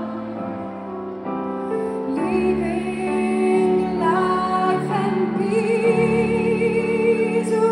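A woman singing a slow ballad, holding long notes with vibrato and gliding between them, over a soft sustained instrumental accompaniment, heard over a stadium's sound system.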